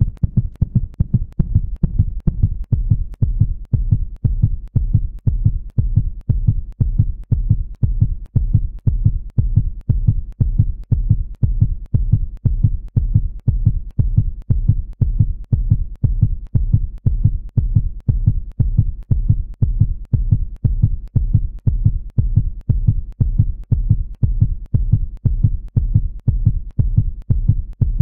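A heartbeat-style soundtrack pulse: even, low thumps at about three to four a second, steady throughout.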